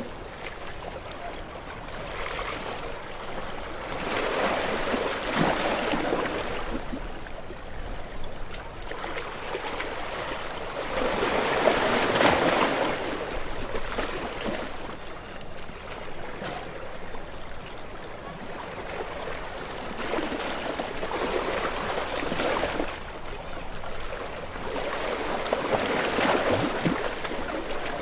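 Sea waves breaking on a rocky shore: a rushing wash that swells and falls away in surges every few seconds, loudest about twelve seconds in, with water trickling back between the rocks.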